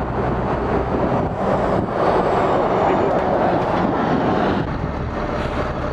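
A lorry's engine running close alongside, a steady low hum over street traffic noise.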